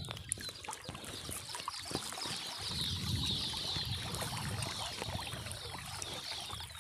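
Stream water trickling and splashing, with scattered clicks and rustling of handling and a low rumble in the middle. Many short high chirps run over it.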